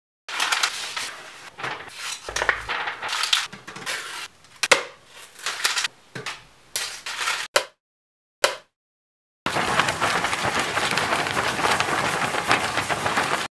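A sheet of paper being crinkled, flapped and rustled close to a studio microphone, in irregular bursts with short breaks. After a moment of silence a steady rushing, surf-like hiss runs through the last four seconds.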